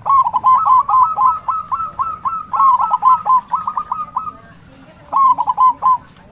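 Zebra dove singing its staccato cooing song: a long run of quick, short coo notes lasting about four seconds, then after a brief pause a shorter phrase near the end.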